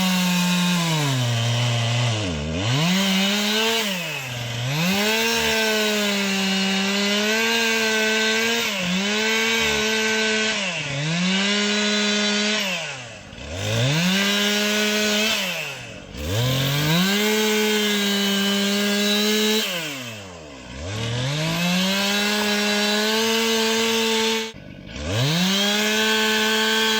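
Gas chainsaw cutting into a log at full throttle, its engine speed sagging sharply and recovering about every two seconds as the chain bites and bogs down. The bar tip is catching in the cut as the log twists. Near the end the engine drops out for a moment, then comes straight back up to speed.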